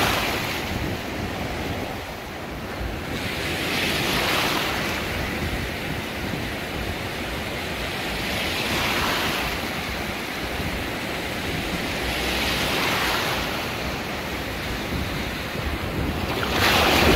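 Ocean surf breaking and washing through the shallows, swelling in a new wave about every four seconds, with wind rumbling on the microphone.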